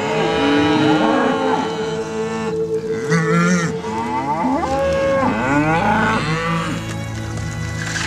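Several cattle mooing, one call after another and often overlapping, the calls rising and falling in pitch.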